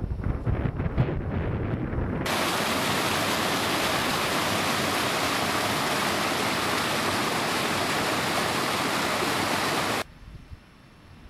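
Wind buffeting the microphone. About two seconds in it cuts sharply to the steady rushing of a small waterfall on a hill stream, which stops abruptly near the end, leaving only faint wind.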